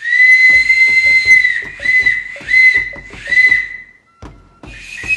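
A small clay whistle blown by mouth: one long, steady high note, then three shorter toots, each dipping slightly in pitch as it starts.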